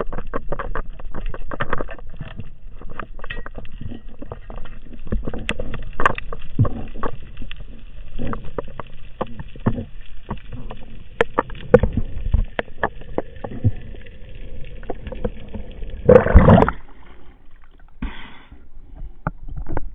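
Muffled underwater sound through an action camera's waterproof housing: irregular clicks and knocks as a spearfisher moves along the rocks with a speared fish. Near the end comes a loud rush of water as the diver breaks the surface.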